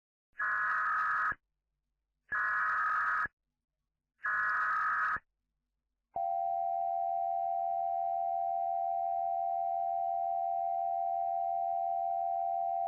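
Emergency Alert System SAME header: three short harsh data bursts about a second apart, each lasting about a second. About six seconds in, the steady EAS attention tone starts and holds.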